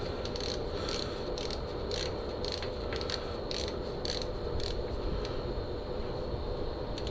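Hand ratchet wrench clicking as it is swung back and forth to run down the fork's pinch bolts, about two clicks a second, stopping about two-thirds of the way through, over a steady background hiss.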